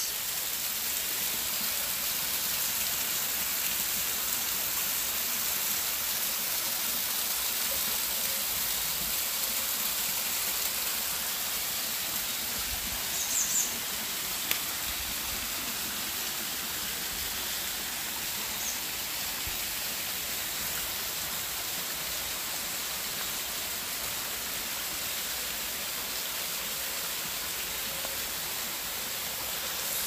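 Small spring-fed waterfall trickling down a rock face into a shallow pool and stream: a steady rush of splashing water, a little softer after about halfway.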